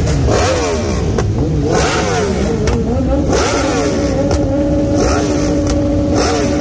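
Stationary motorcycle engines being revved hard in quick throttle blips, the pitch shooting up and dropping again over and over, with several bikes overlapping. About four seconds in, one engine is held at steady high revs. Several short, harsh bursts of noise cut across the revving.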